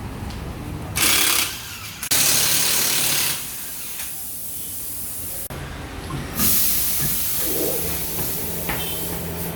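Compressed air hissing in three bursts: a short one about a second in, a longer one at about two seconds, and the longest from about six seconds in, over a steady low machine hum during tyre fitting.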